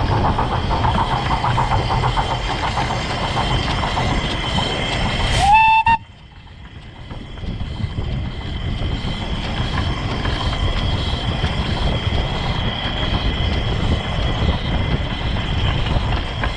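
Albert Barnes 4-4-2 steam locomotive running on 15-inch gauge track, heard from the footplate, with a short whistle blast about five seconds in that rises briefly in pitch and then holds. Right after the whistle the running noise drops suddenly and builds back up over the next few seconds.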